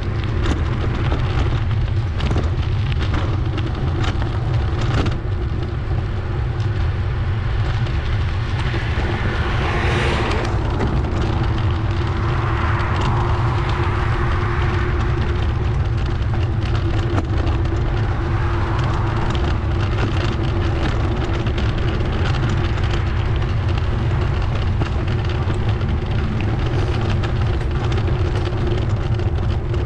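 Wind rumbling on the microphone and rolling noise from a bicycle moving along a path, steady throughout, with a faint steady hum.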